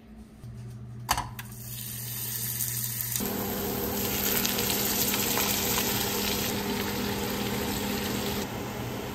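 Striped bass fillets sizzling in a hot cast-iron skillet as liquid is poured over them. The sizzle starts suddenly about three seconds in and runs on steadily. A sharp click comes about a second in.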